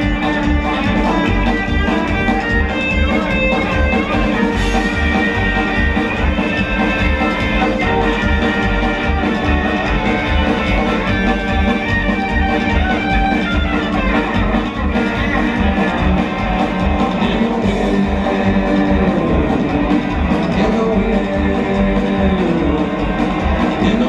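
Live rockabilly band playing an instrumental passage with no singing: hollow-body electric guitar over upright bass and drums, with a steady beat.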